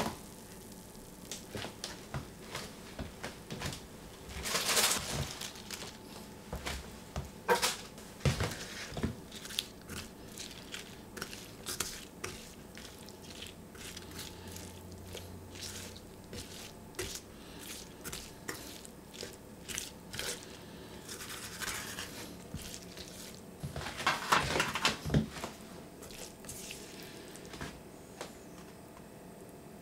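A silicone spatula stirring and scraping a cauliflower, aubergine and spinach mixture in a metal frying pan, with frequent soft clicks and taps against the pan and the squish of the vegetables. There are two louder rustling scrapes, about five seconds in and again near 24 seconds.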